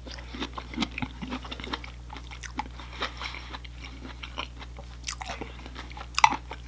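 A person chewing and crunching food close to the microphone, with irregular crackly bites and a sharper crunch near the end.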